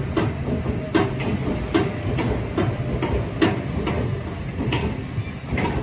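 B&M inverted roller coaster train rolling slowly along the transfer track, with irregular metallic clanks and knocks about once or twice a second over a low rumble.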